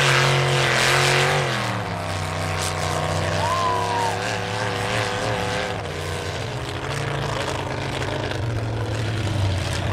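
Big lifted mud trucks' engines running. The engine note drops from a higher rev to a lower, steady idle about a second and a half in.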